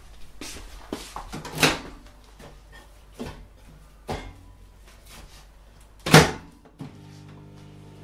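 Knocks and clunks of a microwave oven being handled, the loudest a door-like slam about six seconds in. Near the end the microwave starts running with a steady low hum.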